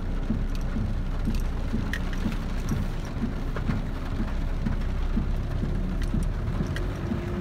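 Heavy rain on a car's roof and windscreen, heard from inside the cabin: a steady hiss with scattered ticks of individual drops, over the low rumble of the vehicle driving on a wet dirt road.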